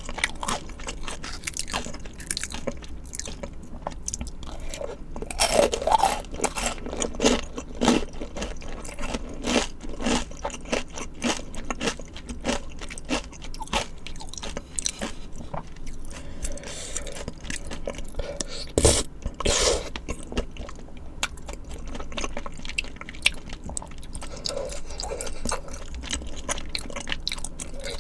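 Close-miked eating sounds from a meal of spicy tteokbokki and assorted fried foods: steady chewing and crunching, broken by many short, sharp clicks and crackles.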